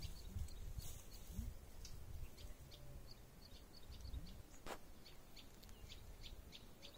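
Faint chirping of a colony of small birds at their hanging nests: many short, high chirps, several a second. A single sharp click about halfway through.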